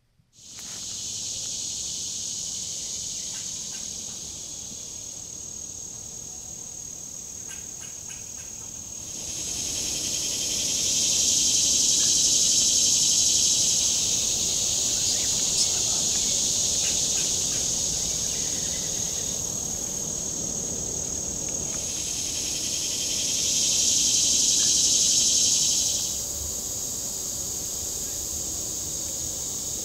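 Chorus of insects buzzing in the woods: a steady, high, shrill drone that swells louder twice and eases back.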